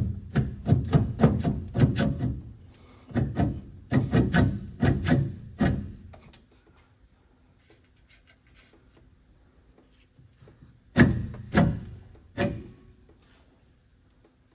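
Heavy dull knocks and clunks of a Land Rover Series III rear differential being worked loose in its axle housing by hand: a quick run of knocks for the first six seconds or so, then three more near the end.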